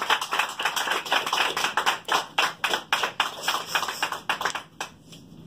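A small group of people clapping by hand, dying away about five seconds in.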